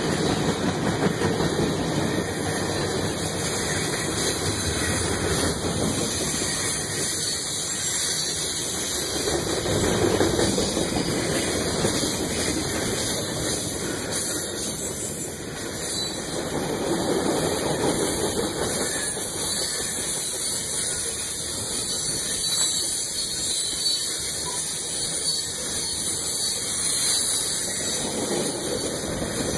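Manifest freight train's tank cars and covered hoppers rolling past: a steady rumble and hiss of steel wheels on the rails that swells every several seconds as cars go by.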